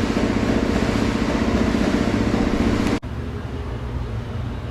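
A motor running with a steady, fast-pulsing drone. It stops abruptly about three seconds in, leaving a quieter low hum.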